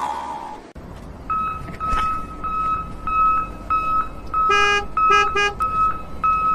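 A quick string of high electronic beeps, like a vehicle reversing alarm, with three short horn toots about two-thirds of the way through. A brief falling sound is heard at the very start.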